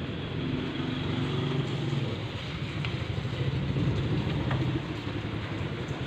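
An engine running steadily at idle: a low, even hum with a few higher tones that waver slightly in pitch, and a couple of faint clicks.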